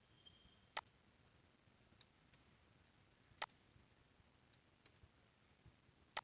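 Computer mouse clicking: three sharp clicks about two and a half seconds apart, with a few fainter ticks between them, over near-silent room tone.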